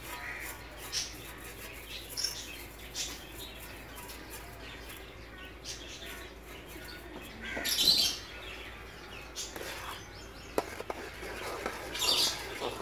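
Small birds chirping on and off, with a few light clinks of a steel spoon and plate against an aluminium cooking pot. There is a louder burst of noise about eight seconds in, and near the end a metal ladle scrapes as it stirs through the thick tomato paste.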